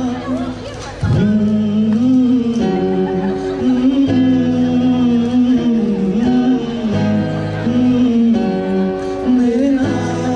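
A man singing long, held, wavering notes without clear words over a strummed acoustic guitar.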